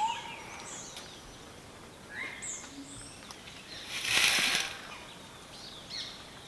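Dry leaf litter rustling and crackling in a short burst about four seconds in as a tiger cub scrambles through it, with scattered high bird chirps around it.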